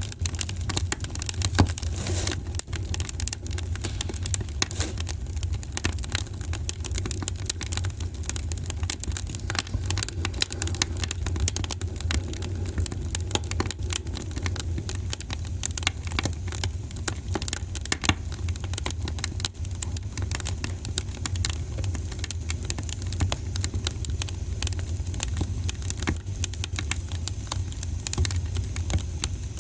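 Wood fire in a fireplace crackling: dense, irregular pops and snaps over a steady low rumble.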